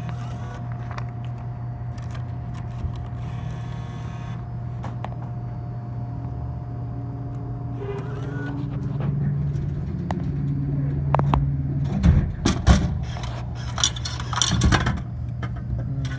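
Steady low hum, then about twelve seconds in a run of sharp metallic clinks and clunks as quarters are handled and fed into a coin-operated vending machine.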